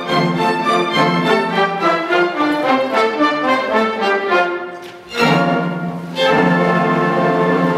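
Orchestral ballet music led by strings: a run of notes falling in pitch that fades about five seconds in, then the full orchestra comes back in loudly with held chords.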